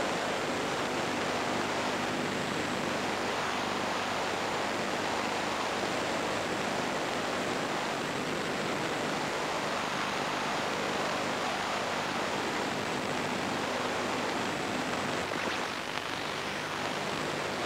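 Steady static hiss from the sound channel of a weak, snowy amateur-television signal, with a faint low hum under it; it dips briefly near the end.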